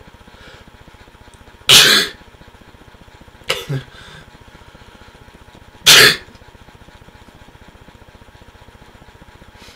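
A man sneezing twice, about four seconds apart, each sneeze a short loud blast; the sneezes are set off by a rolled-up tissue poked into his nose. Two short, softer sounds come between them.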